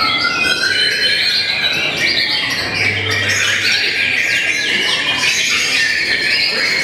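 White-rumped shamas singing: a dense, unbroken run of rapid whistles, trills and chattering notes, several birds' songs overlapping.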